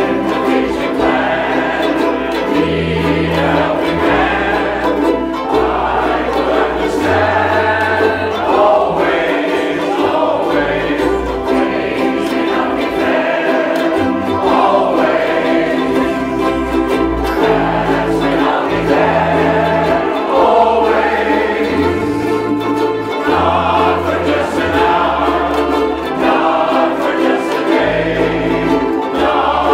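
A large ukulele ensemble strumming a song together while the players sing along as a group, over low bass notes that change every second or two.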